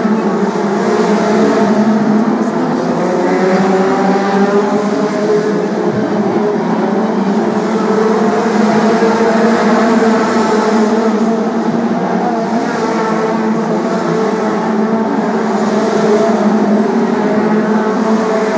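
A pack of BriSCA F2 stock cars racing round a short oval, several engines at once revving up and falling back as the cars lap and pass, their pitches rising and falling over one another.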